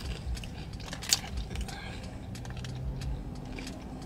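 Scattered small clicks and light rattles of objects being handled, with one sharper click about a second in, over a faint low hum.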